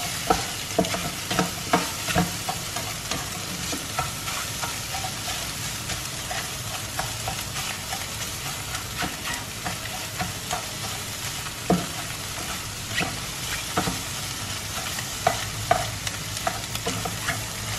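Scrambled eggs and sliced sausage sizzling in olive oil in a non-stick frying pan, a nylon spatula stirring and scraping them with irregular clicks and taps against the pan.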